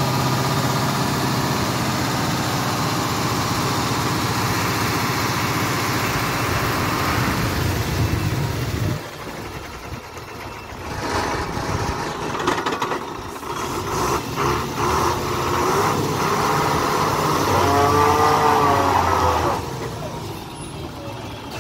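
Heavy loaded multi-axle lorry with its diesel engine running steadily as it crawls around a hairpin. About nine seconds in the engine note drops away. Uneven mechanical sounds follow, with a wavering squeal near the end.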